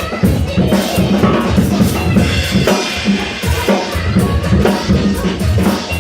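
Drum-heavy beat played by a DJ, with loud, regular kick and snare hits.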